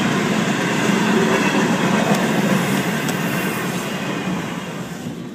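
Florida East Coast Railway freight cars rolling through a grade crossing: a steady rumble of steel wheels on rail, with a couple of light clacks, growing quieter near the end.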